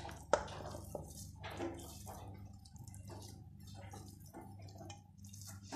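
A spoon scraping cooked chicken mince out of a non-stick frying pan into a glass dish: a sharp knock of spoon on pan about a third of a second in, then soft scrapes and squishy drops of mince, over a faint steady low hum.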